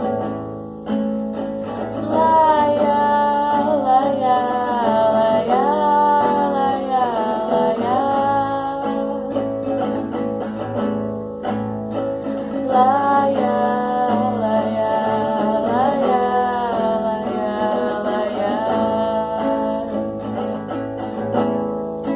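Acoustic guitar playing chords under a sung melody line in two long phrases, with no clear words. The voice gliding between held notes.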